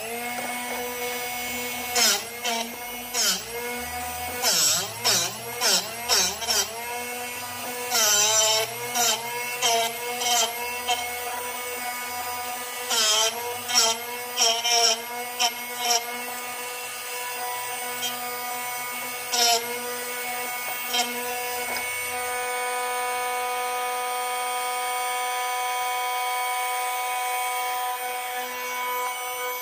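Drill Doctor drill-bit sharpener running with a steady motor hum while a drill bit in its chuck is turned against the grinding wheel, making repeated short grinding rasps for most of the first sixteen seconds and once more near twenty seconds. The bit is being ground further to take out a slight chip left on its cutting edge. The motor then runs on alone.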